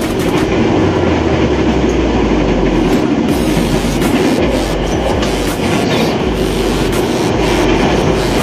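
Electric commuter train (KRL) running along the line, a steady motor hum under the clatter of the wheels, with sharp clicks over the rail joints.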